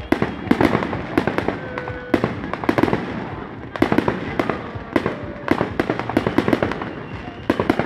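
Fireworks display: aerial shells bursting in a dense, irregular string of sharp bangs and crackles, several a second.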